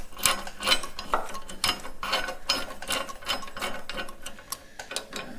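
Irregular light metallic clicks and scrapes of a steel flat washer and jam nut being worked by hand on the threaded brake pull rod of a Minneapolis-Moline tractor, several clicks a second, thinning out near the end.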